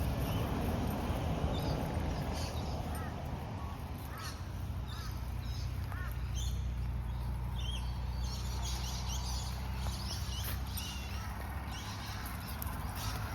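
Several birds calling, with short chirps and whistled notes throughout, over a steady low rumble.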